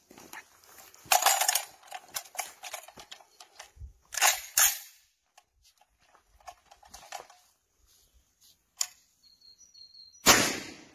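A magazine-fed 12-gauge shotgun is readied with a run of sharp metallic clicks and clacks as the box magazine is seated and the action worked, two loud clacks about four seconds in. One loud buckshot blast follows near the end.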